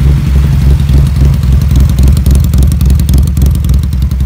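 Custom Honda CB motorcycle engine running at idle with a loud, low, steady exhaust beat, which sounds like a pickup truck.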